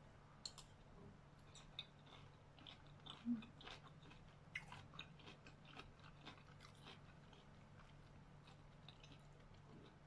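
A person chewing a mouthful of stir-fried yard long beans and pork: a run of short, faint clicks and crunches for about the first seven seconds, then only a low steady hum.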